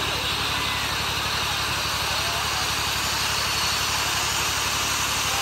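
Steady hissing rush from a row of stage spark fountains spraying sparks, an even, unbroken noise.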